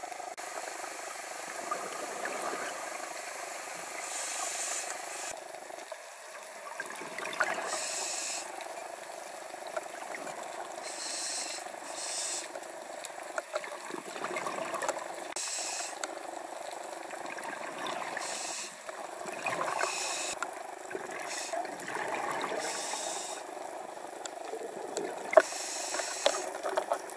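Scuba regulator breathing heard underwater: a hiss of drawn air every three to four seconds, alternating with the rush of exhaled bubbles, over a steady underwater noise with scattered small clicks.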